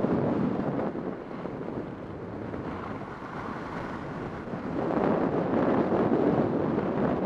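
Gusting wind buffeting the microphone, a rough rushing roar that eases off for a few seconds and swells again about five seconds in.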